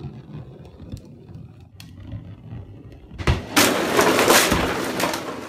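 Faint low rumble, then a thump about three seconds in and a loud clatter of empty plastic water bottles tumbling onto a wooden floor for nearly two seconds.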